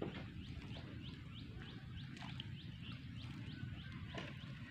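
A bird calling in a rapid run of short rising chirps, about four a second, over a low steady rumble.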